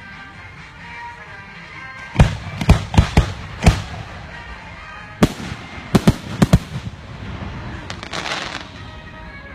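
Aerial fireworks bursting: a quick run of about five sharp bangs, a short pause, then about five more, followed by a spell of crackling near the end. Music plays underneath throughout.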